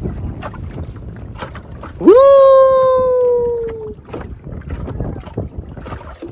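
Wind buffeting the microphone and water rushing past a wooden boat under way. About two seconds in, a long loud call rises sharply, then holds for nearly two seconds, sinking slowly in pitch.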